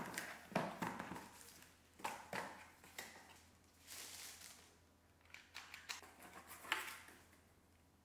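Cardboard packaging and tissue paper being handled: irregular taps, scrapes and rustles as a cardboard insert is lifted and parts are drawn out of their wrapping, with a longer soft rustle about halfway through.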